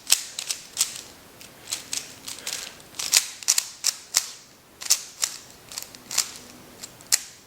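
MoYu Aolong 3x3 speed cube being turned fast: irregular sharp plastic clicks and clacks as the layers snap round, some coming in quick runs.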